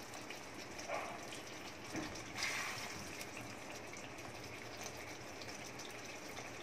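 A quiet steady hiss with a few soft scrapes and wet plops, about one and two seconds in, as thick kadai paneer gravy is spooned from the kadai onto a plate.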